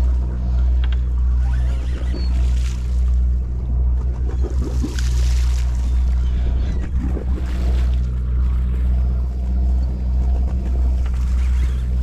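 Sportfishing boat's engine running steadily at a low, even drone, with a few passing rushes of noise over it.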